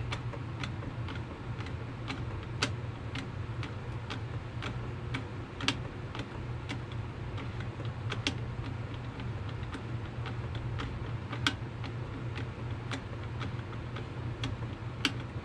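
A hand screwdriver turning a screw into the plastic housing of an Echo PB-250LN leaf blower, making a run of light, irregular clicks and ticks with a few louder ones, over a steady low hum.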